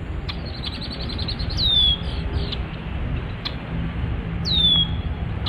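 Red-winged blackbird alarm calls: a quick run of short high notes, then two loud down-slurred whistles about three seconds apart, the bird scolding a person near its territory. A low steady rumble sits underneath.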